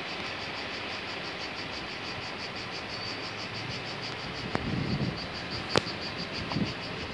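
Cicadas singing in a steady run of rapid, even pulses, about five a second, over a constant hiss. A couple of sharp clicks and a low rumble come in past the middle.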